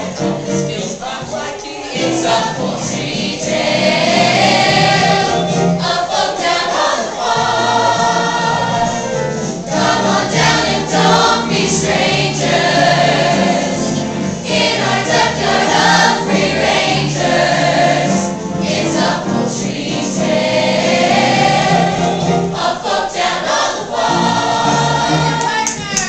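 A mixed group of young voices singing a musical-theatre chorus number together, loud and sustained, in phrases with short breaks between them.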